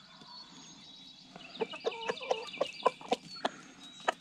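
Chickens clucking: about a second and a half in, a run of short, quick, high calls begins, with sharp ticks scattered among them.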